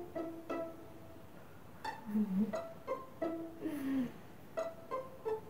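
Light background music of short plucked string notes in a bouncy pizzicato tune.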